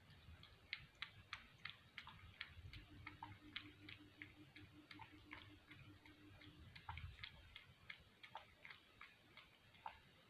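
Cat lapping milk: a steady run of faint, quick clicks, about three to four laps a second, stopping shortly before the end.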